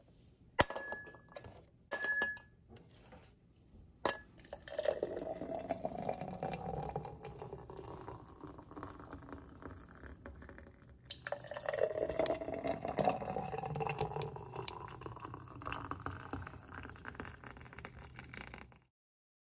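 A few sharp glass clinks, then thick blended berry and pineapple juice poured twice into tall glass jars, each pour a long splashing gurgle whose pitch rises steadily as the jar fills.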